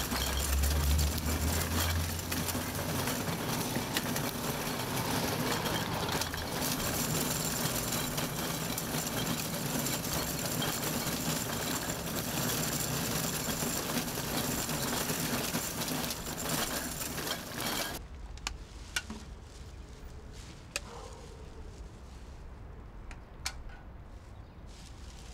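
Metal wire shopping cart rolling over street pavement: a dense, continuous rattle of its frame and casters. It stops abruptly about 18 seconds in, leaving a quieter background with a few sharp clicks.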